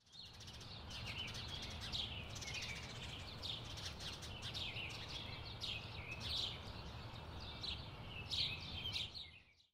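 A flock of pine siskins chattering: a continuous run of quick, high twittering chirps, over a steady low background rumble.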